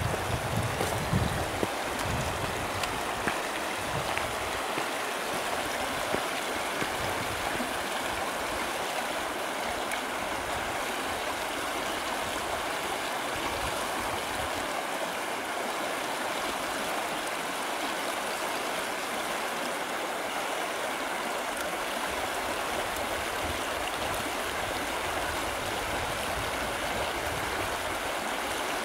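Shallow river riffle rushing over stones, a steady even rush of moving water. Low wind buffets the microphone in the first couple of seconds.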